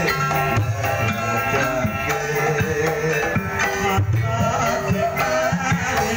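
Live Javanese kuda lumping (ebeg) dance music: steady hand-drum strokes under ringing pitched percussion in a continuous rhythm.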